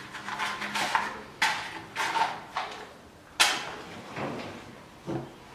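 A matchbox being handled and a match struck against its side several times, about half a second apart; the last stroke, about three and a half seconds in, is the loudest, as the match flares alight.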